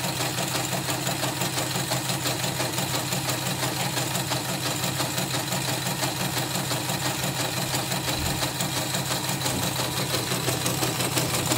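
Portable CNY computerised embroidery machine, covers off, stitching a design: a steady, rapid, even clatter of the needle bar and rotary hook driven by its motor.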